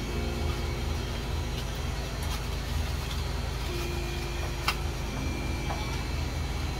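A steady low mechanical hum of a running engine, with a single sharp click a little past the middle.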